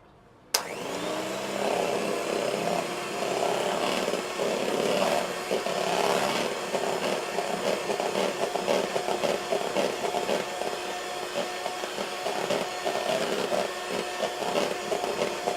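Electric beater switched on about half a second in, its motor spinning up and then running steadily with a constant rattle as it whips a cocoa-milk mixture into non-dairy whipped cream for ice cream.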